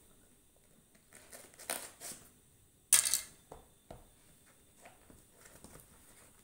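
Packing tape being peeled and torn off a cardboard shipping box by hand, with cardboard scraping and rustling in short bursts; a sharp rip about three seconds in is the loudest.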